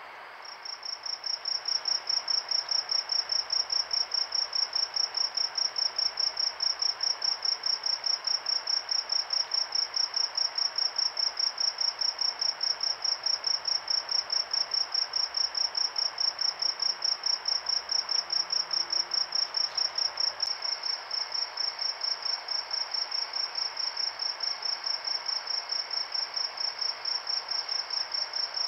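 Crickets chirping in a steady, rapid, high-pitched pulse of a few chirps a second, starting about half a second in, over a faint hiss.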